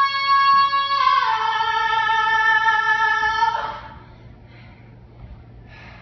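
A woman's voice sustains a long high sung note, steps down to a slightly lower note about a second in, and releases it about three and a half seconds in, leaving quiet room tone.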